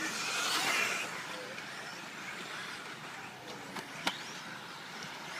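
Electric 1/10-scale off-road RC race cars running on the track: a loud burst of high-pitched motor and tyre noise in the first second, then a steadier hiss with a couple of sharp clacks about four seconds in.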